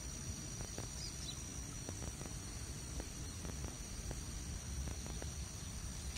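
Steady high-pitched chorus of insects such as crickets, several thin tones held without a break, over a low rumble with faint scattered ticks.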